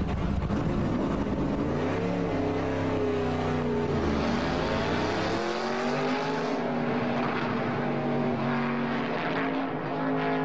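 Stock race car engine running hard at speed, its pitch rising and falling through the first half, then holding steadier and sounding duller from about six seconds in.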